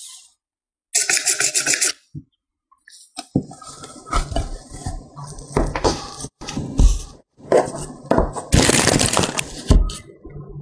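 A short whirring burst of an electric hand mixer's beaters in a glass bowl, then plastic-gloved hands handling dough on a plastic cutting board: soft knocks, rubbing and crinkling of the gloves, with a longer rasping rustle near the end.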